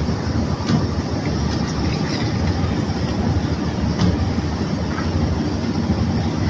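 Steady rumbling and rattling of bulk crushed rock and coal being unloaded from a barge hold, with scattered sharp clicks of stones.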